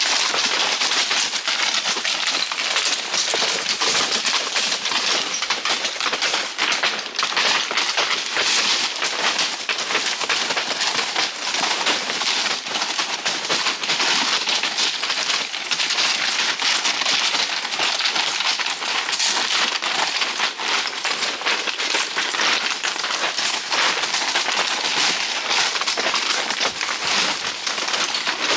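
Horses' hooves walking down loose stone scree: a steady, dense clatter of stones shifting and clinking underfoot.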